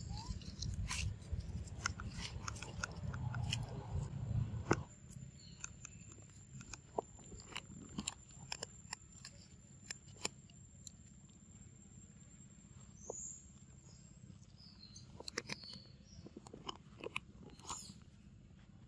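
Scattered clicks and crackles of dry leaves and twigs on the forest floor, over a low rumble that drops away about five seconds in. A thin, steady high whine runs until about two-thirds through, and a few faint chirps come in the second half.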